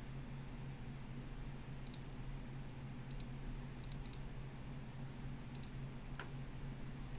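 Computer mouse clicking: a handful of sharp, irregularly spaced clicks, several in quick press-and-release pairs, over a steady low electrical hum.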